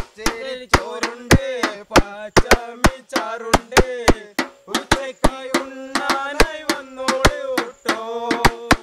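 A man singing a Malayalam song in long, wavering held notes, over sharp percussive knocks beaten at about three a second.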